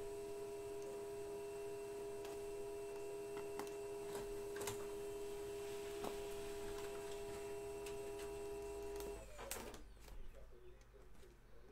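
A steady pitched electrical hum runs for about nine seconds and then stops, dipping slightly in pitch as it cuts out. Under it come faint clicks and crinkles of a small knife slitting the plastic shrink wrap on a hobby box of trading cards.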